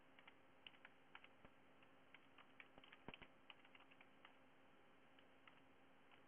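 Computer keyboard typing, faint: a quick run of light key clicks for about four seconds, then a couple of scattered clicks, over a faint steady hum.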